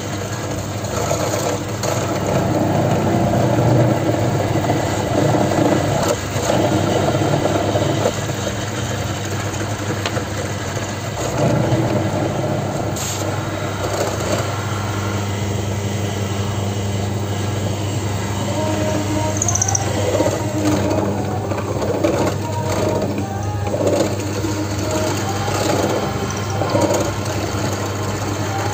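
Bench drill press running with a steady motor hum as its bit bores a deep hole into a block of wood, the cutting noise swelling and dropping again and again as the bit is pressed in.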